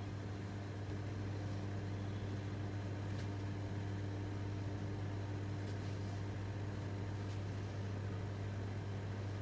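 Steady low mechanical hum of commercial kitchen equipment, unchanging throughout, with a few faint ticks around the middle.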